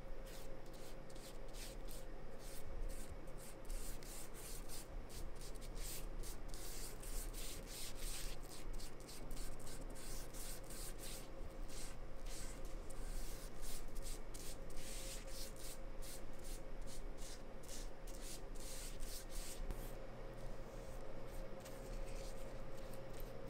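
Foam brush strokes spreading polyurethane over Eastern red cedar, a quick run of short swishing rubs, thickest in the middle and thinning near the end, over a faint steady hum.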